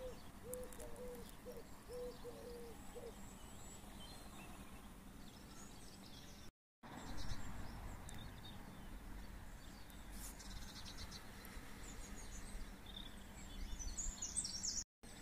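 Outdoor ambience of birds calling over a low steady rumble: a run of short, low repeated call notes in the first few seconds, and high chirps near the end. The sound drops out briefly about halfway through and again at the end.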